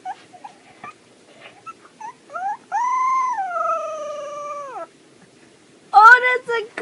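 Husky puppy howling: a few short yips, then one long howl that slowly falls in pitch over about two seconds. Near the end a louder, wavering call begins.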